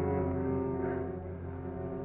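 Background music from the dramatic score: sustained notes held steadily, no speech.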